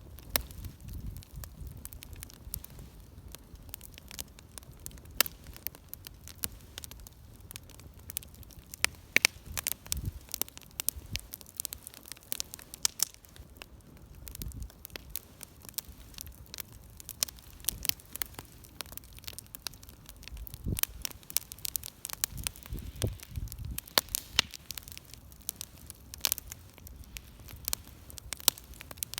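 Wood fire crackling and popping, with frequent irregular sharp snaps over a low steady rumble of flame.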